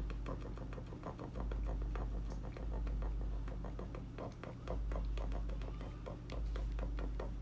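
Rapid typing on an iPhone 8 Plus touchscreen keyboard, each key press giving a short click, several a second in an uneven run. It is a keyboard test of a freshly fitted replacement screen. Under it is a low rumble that swells and fades every second or two.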